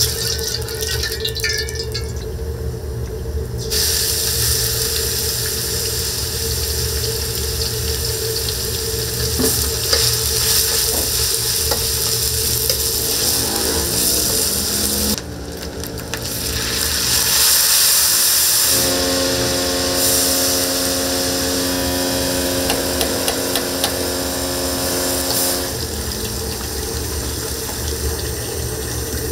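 Wok cooking at a high-flame gas burner: a steady low roar under sizzling and stirring. A humming tone joins past the middle for several seconds.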